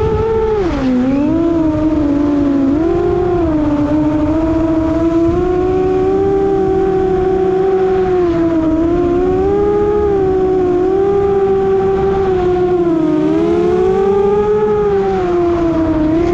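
FPV quadcopter's electric motors and propellers whining, heard from its onboard camera, the pitch swooping up and down as the throttle changes, with wind rushing over the microphone underneath.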